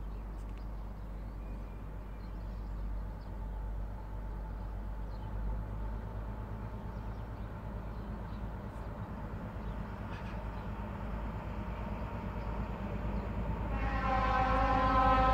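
Low rumble of an approaching diesel-hauled freight train, slowly growing louder. About a second before the end the locomotive's horn sounds and is held.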